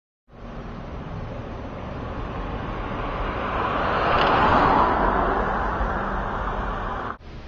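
Outdoor traffic noise: a car passing, its rushing tyre and engine noise swelling to a peak about halfway through and then easing off. It cuts off suddenly near the end.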